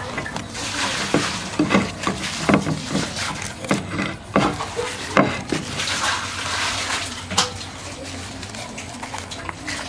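Fresh banana leaf rustling and crackling as it is folded and creased by hand into a parcel, with scattered sharp clicks and taps.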